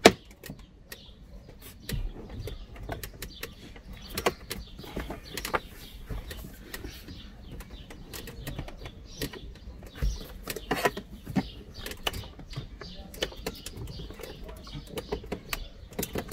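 Scattered light clicks, taps and creaks of a Chery Tiggo's plastic glove box being gripped, flexed and pushed to free its side stops.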